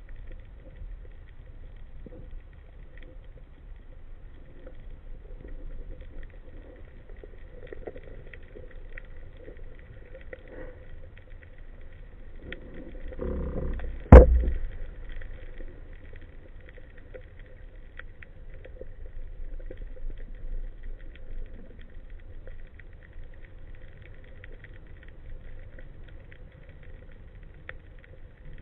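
Underwater sound as heard through a speargun-mounted camera: a steady low rumble with faint scattered crackling, and one sharp, loud knock about halfway through.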